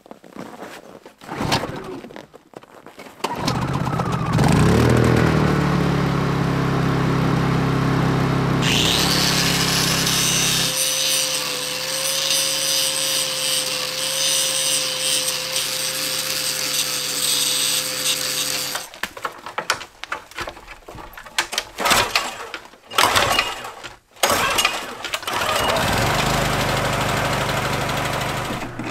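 Angle grinder grinding steel, a harsh hiss over a steady motor whine lasting several seconds. Before it a machine starts up and runs with a low hum, and afterwards come irregular knocks and rattles of handling.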